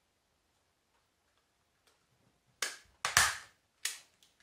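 Handheld stapler snapping shut on a flattened cardboard toilet-paper roll, stapling it closed: a quick run of four or five sharp clacks in the second half, after a near-silent start.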